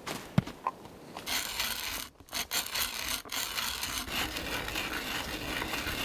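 A hand tool cutting into a wooden log, making a continuous rasping scrape that starts about a second in and breaks off briefly twice. A sharp knock comes just before it.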